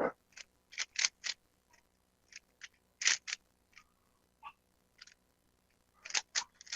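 Plastic Rubik's cube being twisted by hand: quick, irregular clicks and clacks as the layers turn. They come in short clusters, with a lull in the middle and a fast flurry of turns near the end.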